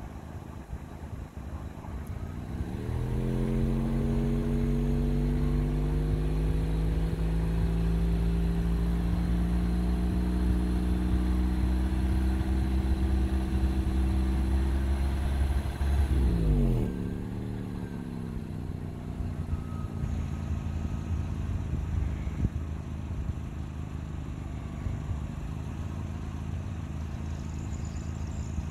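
A vehicle's motor drone sets in about two and a half seconds in and climbs slowly in pitch. About seventeen seconds in it sweeps quickly down and falls away, leaving a quieter background hum.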